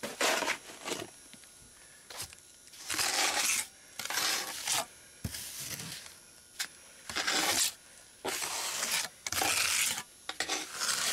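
Steel trowel scraping and smoothing wet concrete patch mix on a concrete slab, in a series of short strokes with brief pauses between them.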